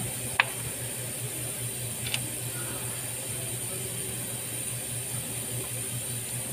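Two sharp clicks as parts are handled on top of the engine: a loud one about half a second in and a lighter one about two seconds in. A steady low hum and hiss run under them.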